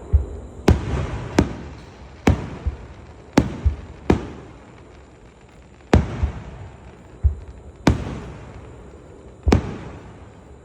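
Fireworks display at close range: aerial shells bursting with sharp bangs every half second to two seconds, each trailing off in an echo, with deeper thumps in between.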